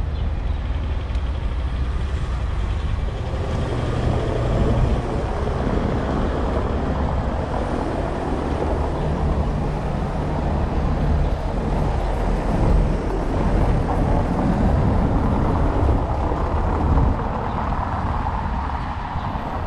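Street traffic, with vehicle engines and tyres running past in a steady mix. A deep engine hum stays under it throughout.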